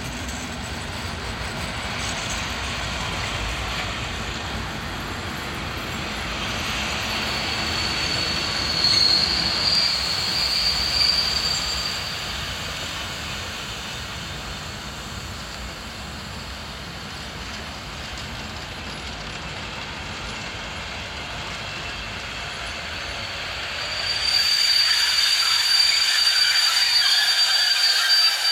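Vintage railway coaches and wagons of a train pulling out of a station, rolling past on the rails with a steady rumble. The steel wheels give a high, steady squeal about a third of the way in, and again, louder, for the last few seconds.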